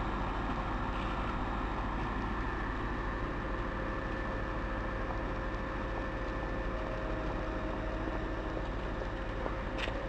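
Steady rumble and hum of a Berlin S-Bahn electric train, with a faint steady whine over it; a few faint clicks near the end.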